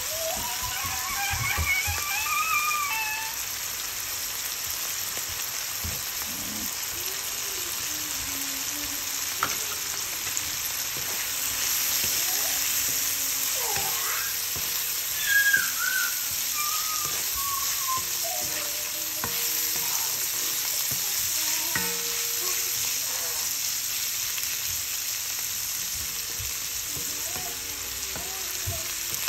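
Oil sizzling steadily in a wok as small shrimp, onion and potato matchsticks fry, with a wooden spatula stirring and scraping through the pan.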